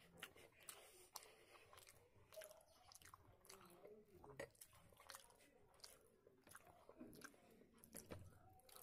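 Faint close-up mouth sounds of a person chewing, with many short, sharp, wet clicks and lip smacks spread through.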